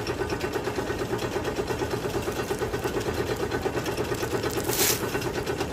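An engine running steadily with a fast, even pulsing beat. A short rustling hiss rises over it about five seconds in.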